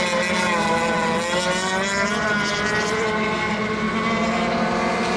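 Several radio-controlled racing boats' engines running on the water at once, an even whine of several pitches overlapping, some drifting up and down as throttles change.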